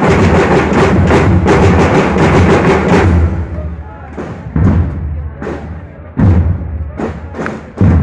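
School parade drum corps: snare-type marching drums play a fast, dense passage, which stops about three seconds in. It gives way to single heavy drum beats with a deep low boom, roughly one a second.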